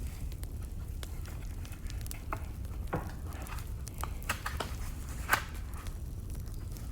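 Wood fire burning, with irregular sharp crackles and pops over a steady low rumble; the loudest pop comes about five seconds in.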